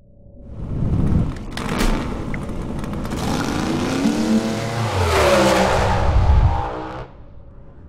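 Race car engine revving hard in a short intro sound effect, its pitch sweeping up and down, with sharp cracks about a second and a half in. It cuts off abruptly about seven seconds in.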